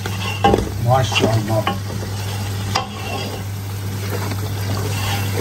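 A wooden spatula stirring and scraping lamb chops in thick masala in a metal pot as it sizzles over the heat, with one sharp knock about halfway through, over a steady low hum.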